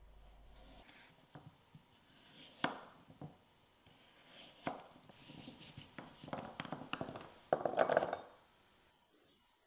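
Kitchen knife cutting a carrot into chunks on a wooden cutting board: scattered sharp chops, coming faster toward the end. A louder clatter about eight seconds in as the carrot pieces drop into a ceramic bowl.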